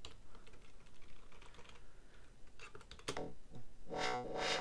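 Computer keyboard typing: irregular key clicks, with a short pitched sound about four seconds in.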